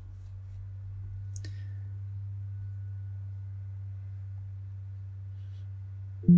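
Steady low electrical hum with a single short click about a second and a half in. Right at the end a loud Windows alert chime begins: the warning sound of an error dialog popping up.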